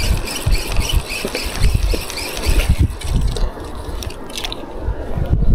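Spinning reel being cranked to retrieve a rattling lure: a light, fast ticking at about three a second that stops about three seconds in. Low, irregular thumping and rumble run underneath throughout.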